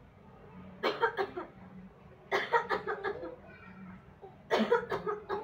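A person's voice in three short bursts, over a faint steady low hum.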